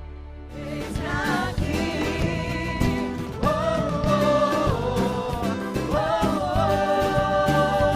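A Christian worship song starts about half a second in: a band with a steady beat under a held, wavering melody line.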